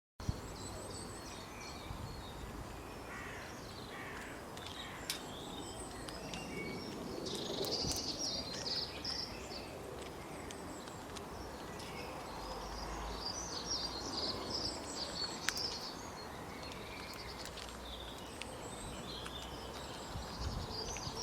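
Birds calling outdoors: clusters of short, high chirping calls come and go over steady natural background noise, with a few sharp clicks.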